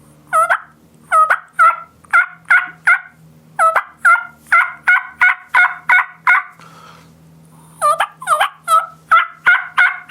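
Wild turkey hen yelps made on a diaphragm mouth call, run at full speed: a series of quick two-note yelps at about three a second, a short pause, then a second series starting about eight seconds in.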